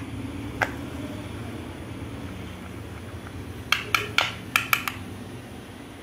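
Sharp metallic clicks and clinks as a battery cable's metal terminal lug is handled and a test-lamp wire is fastened to it: one click, then a quick run of about six clinks midway.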